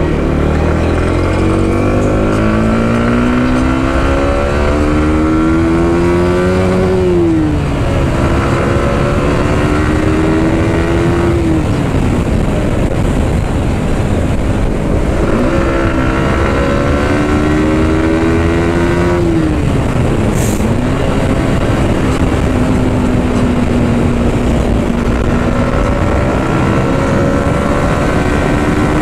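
Yamaha R15M's 155 cc single-cylinder engine accelerating hard through the gears, its pitch climbing and then dropping sharply at each of three upshifts. It holds a steady note for a few seconds, then climbs again near the end, with a steady rush of wind and road noise underneath.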